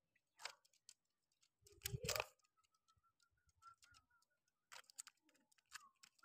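Near silence: a few faint clicks and taps, the loudest about two seconds in, with a faint run of short, soft high peeps in the middle.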